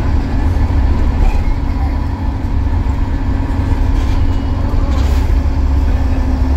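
Optare MetroCity bus with an Allison automatic gearbox, its diesel running in a steady heavy low rumble with a constant hum that grows a little stronger near the end.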